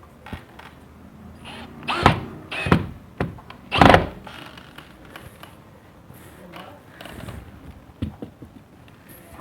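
A few knocks and thunks from handling the door at its hinge, with the loudest about four seconds in and a smaller one near the end; the screw driving has stopped.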